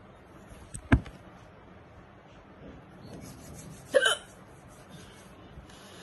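A woman hiccupping twice: short, sharp hiccups about a second in and again about three seconds later.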